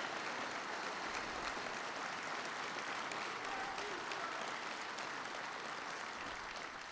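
A large crowd of uniformed police officers applauding with white-gloved hands, a steady dense clapping that slowly fades toward the end.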